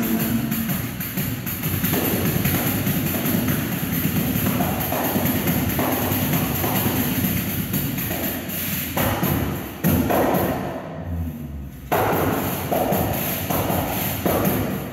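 Live acoustic music led by a hand-held frame drum with jingles, a tambourine, played in a fast, steady rhythm of hand strikes with deep thumps from the drum head. It drops briefly a little past the middle, leaving a few low thumps, then picks up again.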